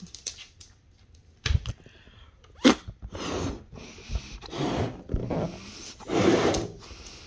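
A person blowing up a rubber balloon by mouth: three long puffs of breath into it, each under a second, about a second and a half apart, after a sharp short sound some two and a half seconds in.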